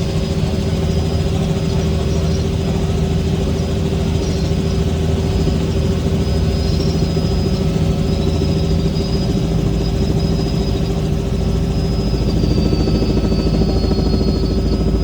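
Helicopter engine and rotor running with a steady drone and a constant whine.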